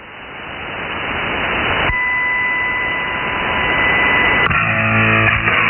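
Shortwave radio static received on upper sideband, swelling up to full strength. About two seconds in a steady whistle tone comes in and holds. About four and a half seconds in, guitar rock music from a pirate station breaks through the static.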